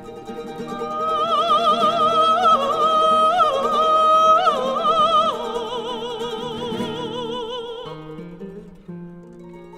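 Soprano singing a long high note with wide vibrato over guitar and mandolin accompaniment. About five seconds in, the voice steps down to lower held notes and fades, leaving the plucked accompaniment near the end.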